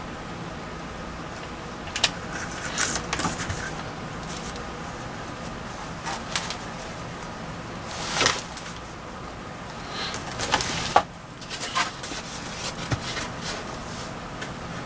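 Foam board being handled and pressed together during gluing: scattered scrapes, rustles and light knocks over a steady background hum.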